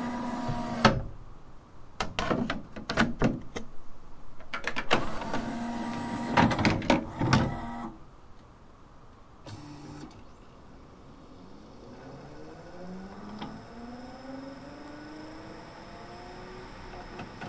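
Pioneer LaserDisc player loading a disc: the tray motor whirs and the mechanism clicks as the tray draws in, over the first several seconds. After a pause and a few clicks, the spindle motor spins the disc up with a rising whine.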